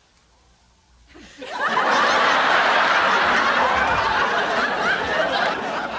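Audience laughter from many people at once, starting about a second in, swelling quickly and holding.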